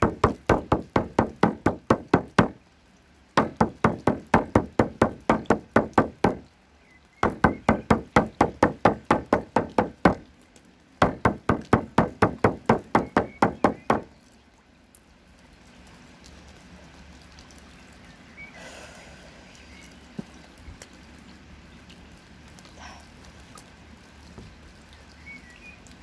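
Shamanic frame drum beaten in a steady rhythm, about four or five strokes a second, in four runs of about three seconds each with short pauses between them. The drumming stops about halfway through.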